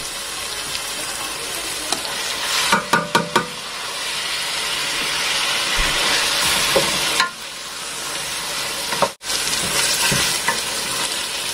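Onions, green chillies, mint and coriander sizzling steadily in hot oil in a metal pot as a wooden spatula stirs them, with a few quick knocks and scrapes of the spatula about three seconds in. Sliced tomatoes go into the pot, and the sizzle grows louder for a few seconds in the middle.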